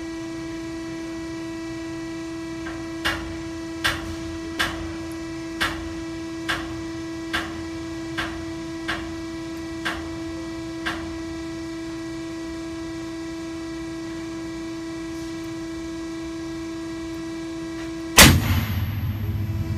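Heavy chain and shackles under load on a test bed, with a steady machine hum behind. About ten sharp cracks come just under a second apart over several seconds, the later ones weaker. Near the end a single loud bang with a rumbling tail is typical of something in the rigging snapping under tension.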